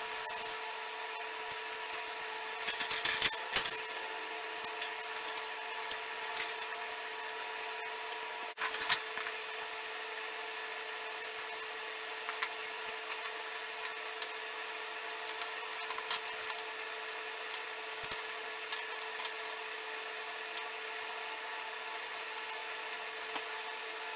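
A steady hum, with occasional clicks and knocks as wooden stave pieces are handled on a workbench; the loudest cluster comes about three seconds in.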